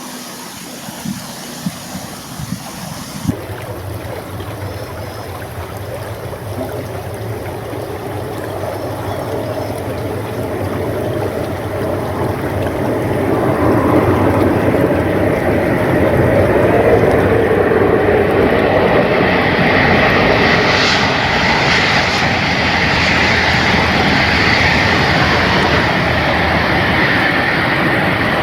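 Hokuriku Shinkansen train approaching on the line: a rushing noise that builds over about ten seconds, then stays loud with a faint steady whine in it.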